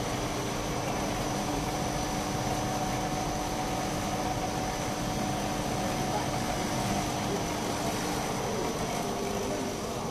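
Three-layer air bubble film making machine running: a steady mechanical hum and rush of air with a thin high whine over it. A lower steady tone in the hum drops out about eight and a half seconds in.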